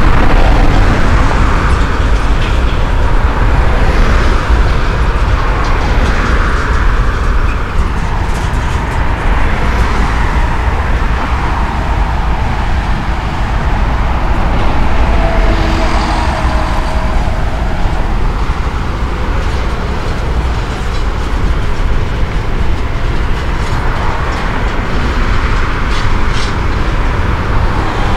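CSX intermodal freight train of double-stacked container cars rolling across an overpass, a steady rumble with scattered light clicks, mixed with road traffic passing underneath.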